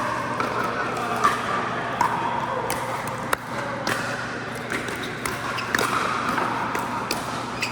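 Pickleball paddles striking the plastic ball and the ball bouncing on an indoor court: sharp pops at irregular intervals, roughly one a second, the loudest about halfway through, over faint background voices and a steady low hum.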